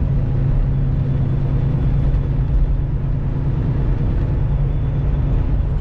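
Semi truck cruising at steady speed: a low, even diesel engine drone with road and tyre rumble.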